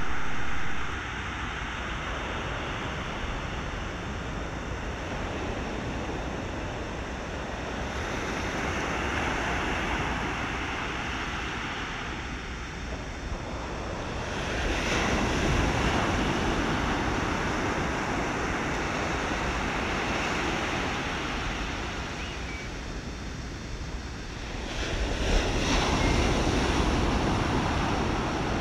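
Steady rushing noise of wind and ocean surf, swelling louder about halfway through and again near the end.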